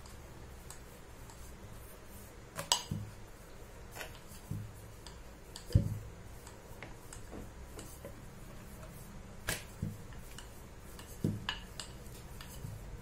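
Wooden rolling pin rolling dough out thin on a white plastic board, with a few scattered sharp knocks and clicks as pin and board bump, the loudest about six seconds in.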